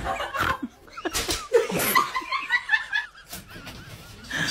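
People laughing in loud, uneven outbursts.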